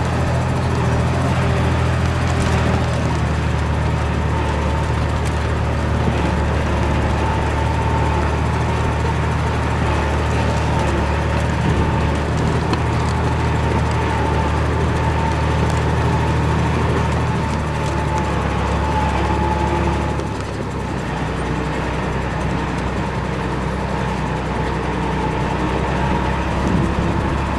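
Heavy diesel earthmoving engine running steadily under light load, its low note shifting slightly a few times and dropping a little in level about twenty seconds in.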